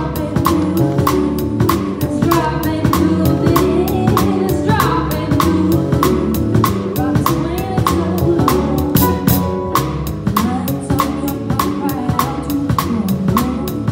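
Live band playing a song: a singer's amplified voice over a drum kit keeping a steady cymbal beat, with electric bass and keyboard.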